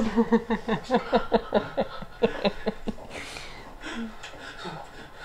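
Women laughing: a run of quick 'ha-ha-ha' pulses, about five a second, dying away after about three seconds into softer breathy chuckles.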